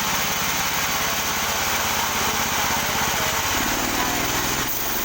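Engine of a wood-cutting sawmill running steadily, its sound changing about three and a half seconds in.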